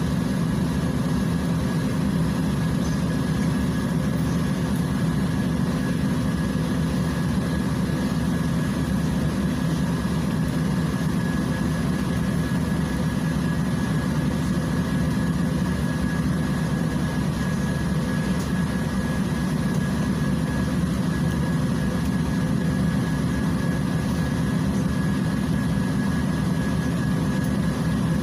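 Volgabus 5270G2 city bus's Yuchai CNG engine idling steadily while the bus stands in traffic, heard from inside the passenger cabin as a low, even hum with a thin steady whine above it.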